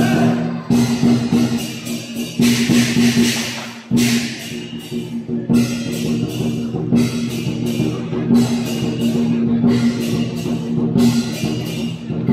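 Lion dance percussion ensemble of drum, cymbals and gong playing a driving beat, with sharp cymbal clashes about twice a second and a longer ringing cymbal wash about two to four seconds in.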